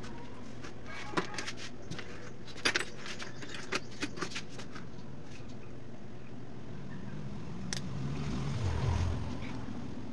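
Light metallic clicks and jingles of wire ring terminals and connectors being handled. The clicks are scattered, come most densely in the first half, and include one more near the end, over a steady low background rumble.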